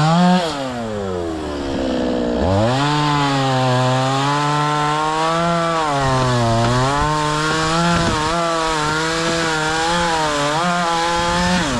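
Two-stroke chainsaw cutting into a tree. Its engine speed drops shortly after the start, picks back up about two and a half seconds in, then holds high with a wavering pitch under the load of the cut.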